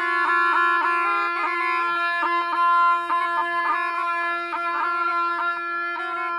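Zurlas, shrill double-reed folk oboes, playing a folk tune: one holds a steady drone while the other plays a melody full of quick ornamented turns.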